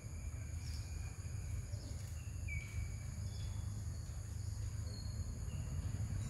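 Forest ambience: a steady high insect drone over a constant low rumble, with a few short, faint chirps.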